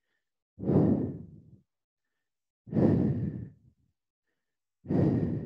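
A woman's breath blowing onto a close headset microphone: three long, sighing exhales, about two seconds apart, while she holds a forward-bend hamstring stretch.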